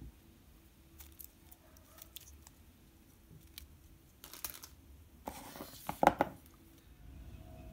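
Quiet handling noise: small clicks as the micro drone's plastic frame is turned in the fingers, then short scraping rustles after about four seconds as the cardboard box is pushed across the cutting mat.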